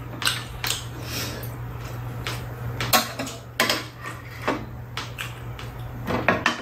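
Spoons and chopsticks clinking and tapping against ceramic bowls and a metal tray while eating: irregular short clinks, roughly one every half second to second, over a steady low hum.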